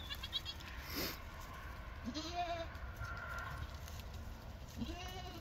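Goat bleating: two short calls that rise and fall in pitch, one about two seconds in and one near the end.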